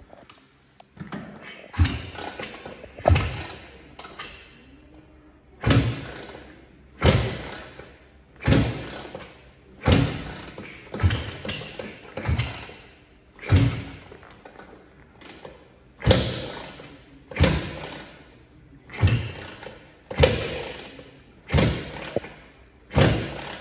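1981 Maico 490 Mega 2 single-cylinder two-stroke being kick-started over and over, about one kick every one and a half seconds. Each kick is a sharp thump with a short fading rush after it as the engine turns over without firing.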